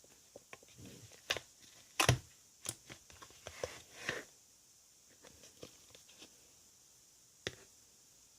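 Slime being pressed and stretched by hand, giving irregular sticky clicks and small pops. They come thickest in the first half, loudest about two seconds in, then grow sparse.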